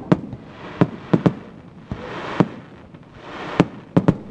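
Aerial fireworks shells bursting: about eight sharp bangs at uneven intervals, some in quick pairs, with swells of rushing noise between them.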